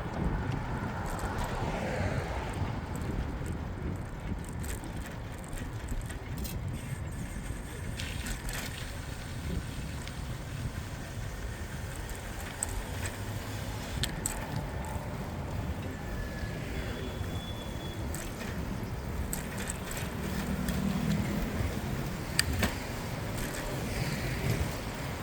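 Riding a bicycle through city traffic: a steady low rumble of wind and tyres with passing vehicles, and a few sharp clicks along the way.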